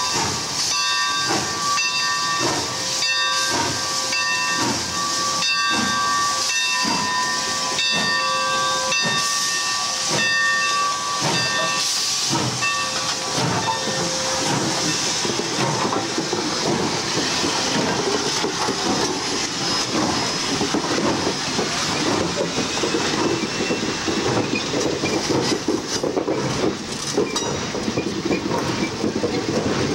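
AT&SF 3751, a 4-8-4 steam locomotive, passing slowly with steam hissing. For about the first half a chord of ringing tones sounds, renewed about once a second with rhythmic strokes. Then the tender rolls by with a rumble and rattle of wheels.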